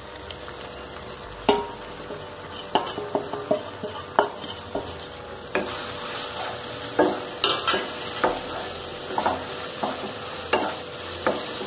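A wooden spatula stirring ground spices into chopped tomatoes frying in oil in a non-stick kadai: a steady sizzle, broken by irregular knocks and scrapes of the spatula against the pan.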